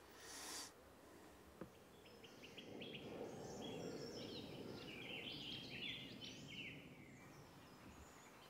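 Small woodland birds singing faintly, a quick run of high chirps and down-slurred notes through the middle few seconds, over a low steady outdoor hush. A brief hiss at the very start and a single soft click about a second and a half in.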